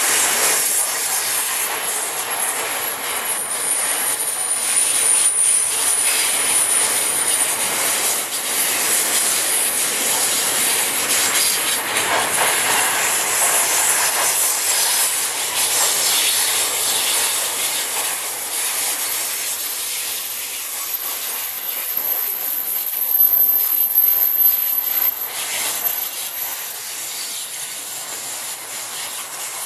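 Container freight wagons rolling past on a curved track: a steady rush and clatter of steel wheels on rail, with a thin high flange squeal a few seconds in and again about three-quarters of the way through.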